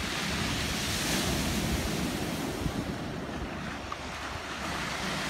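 Ocean surf breaking and washing up a cobblestone beach, a steady rush that swells about a second in, eases a little past the middle and builds again near the end.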